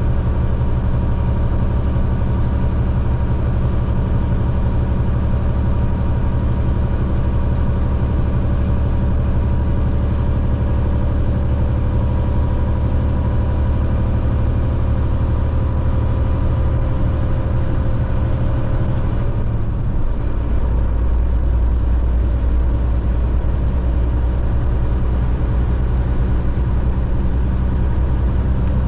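A car driving on an interstate highway: steady engine and tyre road noise. About two-thirds of the way through, the low rumble drops lower in pitch and a faint steady whine stops.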